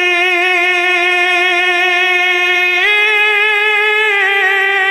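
A naat reciter holds one long sung note on the last word of a line of a Punjabi devotional verse. The note steps up a little in pitch about three seconds in and begins to waver near the end.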